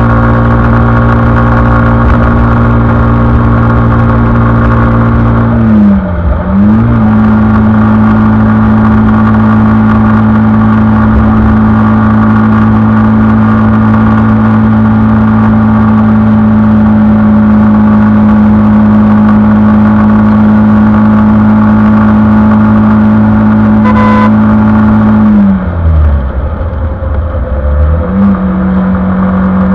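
Suzuki Gixxer 155's single-cylinder engine running at steady revs at highway speed. The revs drop and climb back briefly about six seconds in, and again for about two seconds near the end, where they settle a little lower. A short beep about 24 seconds in.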